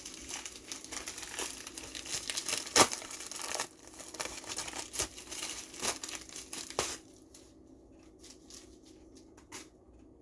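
Mail packaging being torn open and crumpled by hand, a dense crinkling with sharp crackles. It thins out after about four seconds, with only a few crackles after about seven seconds.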